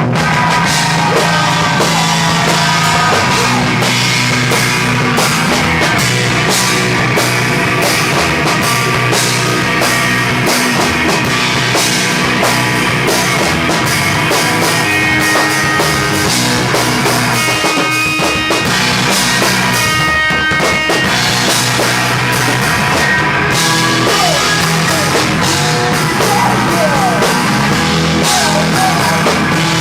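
Live rock band playing loud, with a drum kit driving a fast, busy beat under electric guitars.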